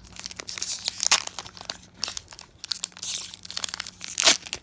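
Foil booster pack wrapper crinkling and crackling in the hands in irregular sharp bursts, loudest about a second in and again near the end.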